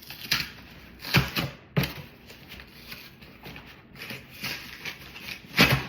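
Cardboard shipping box being opened by hand: several short bursts of rustling and tearing, the loudest near the end.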